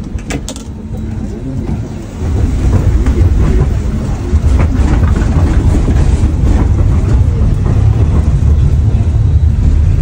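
Low rumble of a city streetcar heard from inside, growing much louder about two seconds in as it pulls away and runs along the street.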